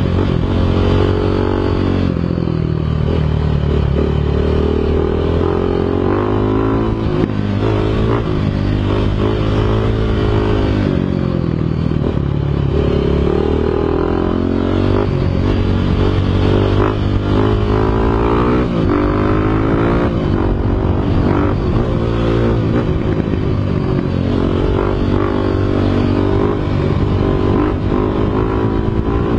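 Dirt bike engine running while ridden, its pitch repeatedly rising and falling as it revs and shifts through the gears.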